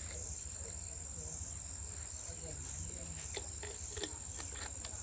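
Steady high-pitched crickets trilling over a low hum, with a few faint clicks in the second half.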